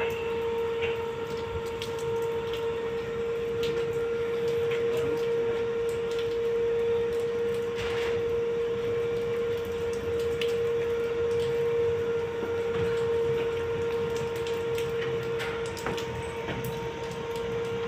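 Crane machinery running steadily while hoisting a cooling tower section: a constant, unchanging whine over a low hum, with scattered faint clicks.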